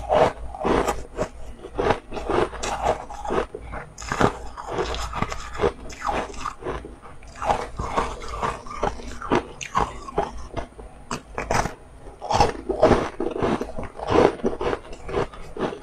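Close-up biting and crunching into a frost-covered frozen ice snack, with chewing between bites: many irregular crisp cracks, several a second.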